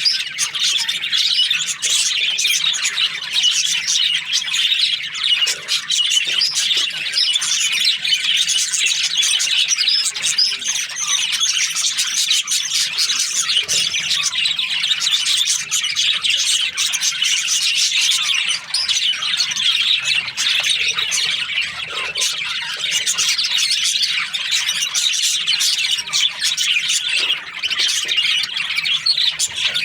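A flock of budgerigars chattering and chirping without pause, many birds calling over one another with scattered squawks.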